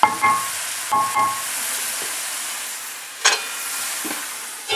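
Lamb, onions and tomatoes sizzling in a stainless-steel pot, with a few light ringing clinks of a utensil on the steel in the first second or so, and a sharper metal clank about three seconds in as the steel lid is brought onto the pot.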